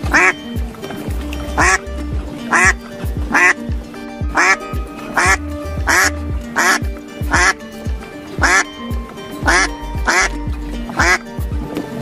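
Background music with duck quacks repeating on a steady beat, about one a second.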